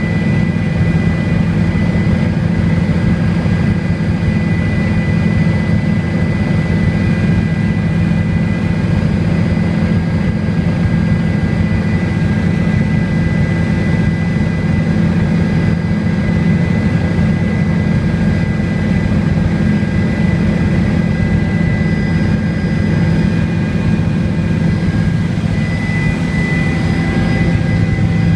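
Steady engine drone of a small aircraft in flight, heard from inside its cabin, with a thin steady whine above the low drone.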